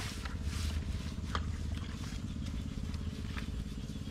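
A small engine running steadily at an even speed, with a few light knocks and rustles over it.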